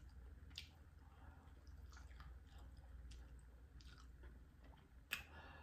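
Faint mouth sounds of a person chewing food, with scattered soft clicks and a sharper click about five seconds in.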